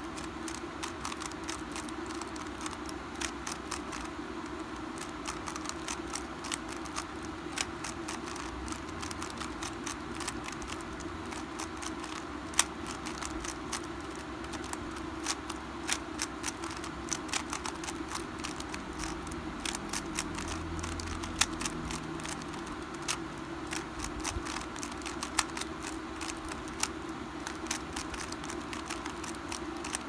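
Metallized 3x3 Rubik's cube being turned quickly, its layers clicking and clacking as they rotate: many short sharp clicks in irregular runs over a faint steady hum.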